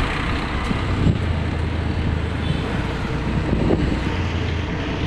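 Wind buffeting the microphone over a steady rumble of road traffic.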